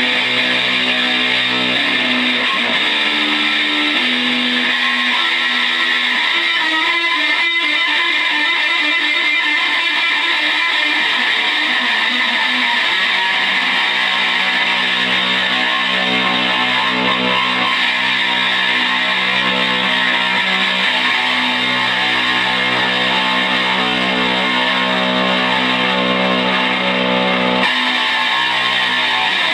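Electric guitar played loud through effects as noise music: long, dense, droning held notes, with a few changes of pitch in the first seconds and a shift near the end.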